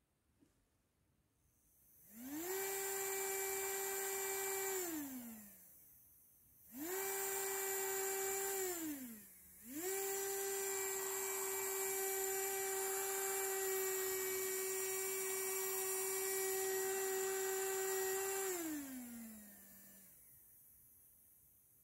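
Small brushed DC motor whining as its speed is turned up and down with a potentiometer through a MOSFET speed controller. It spins up three times. The pitch rises to a steady whine each time and falls away as it slows, briefly about three seconds in and again about seven seconds in, then it holds for about eight seconds before winding down near the end.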